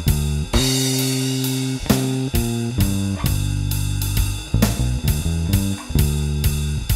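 Fender Mustang bass with a Nordstrand angled-pole pickup, run through a Seymour Duncan Studio Bass compressor, playing a blues bass line of held notes over a drum kit's steady beat. A cymbal crash comes about half a second in.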